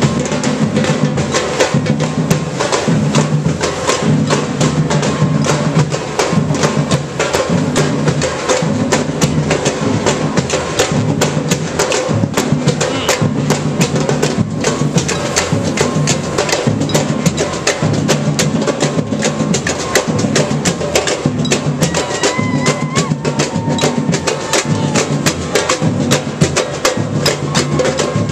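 Marching street band playing: a dense, driving drum beat over a low bass figure that repeats about once a second.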